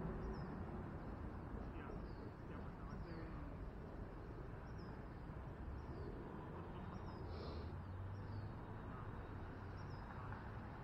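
Steady low rumble of wind and road noise from a moving bicycle, with a short, high, falling chirp repeating about once a second.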